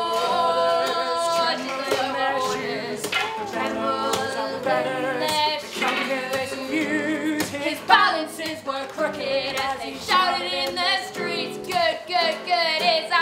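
A woman singing a song to an acoustic guitar.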